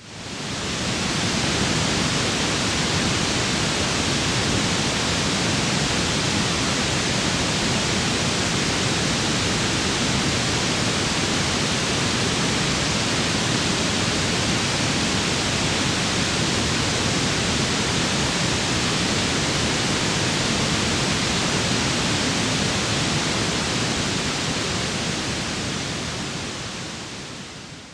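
Steady synthetic white noise, an even hiss across the whole range, tuned for masking tinnitus. It fades in over the first second or two and fades out near the end.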